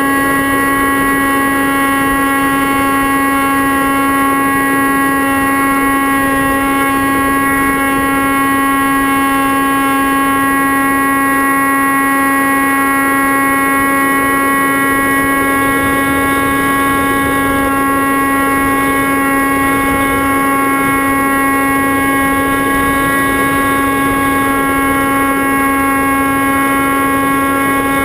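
Motor and propeller of an FPV model aircraft, picked up by its onboard camera: a steady whine at one unchanging pitch over a rushing hiss of prop wash and wind.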